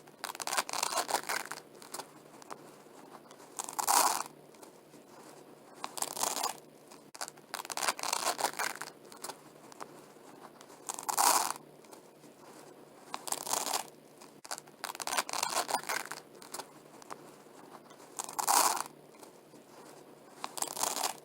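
Velcro hook-and-loop strips being pulled apart, a tearing rip about every two to three seconds, nine times in all, with fainter crackles between the rips.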